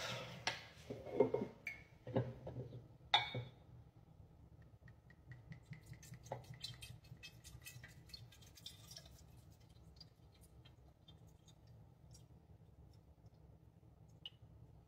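A few glassy knocks and clinks as a bourbon bottle and a glass decanter are handled, then faint liquid pouring as bourbon runs from the bottle into the narrow neck of the glass decanter.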